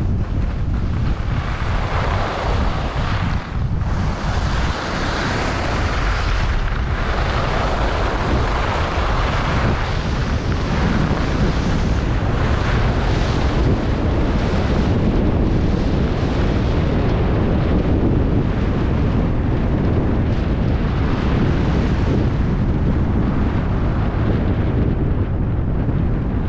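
Wind buffeting a GoPro's microphone as a skier runs fast down a groomed piste, with the hiss of the skis carving on the snow swelling and fading through the turns.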